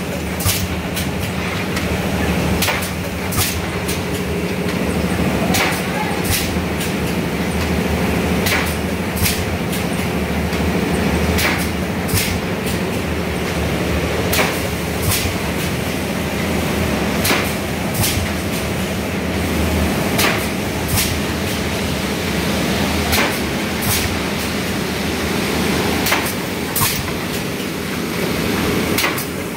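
Automatic PET bottle blow-moulding machine running: a steady mechanical hum with short sharp clacks, often in pairs, repeating about every three seconds as the machine cycles.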